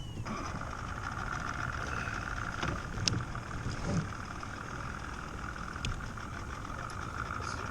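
Electric kayak trolling motor running with a steady whine that starts abruptly just after the start. A few sharp clicks sound over it, about three and six seconds in.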